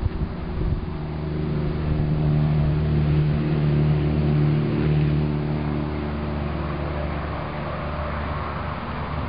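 A motor engine running with a steady drone, loudest a few seconds in and then easing off slightly.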